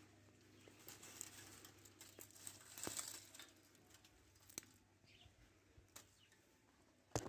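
Quiet, scattered clicks and crinkles of a cat eating from a small plastic tub, busiest about three seconds in, with a short loud rustle at the very end.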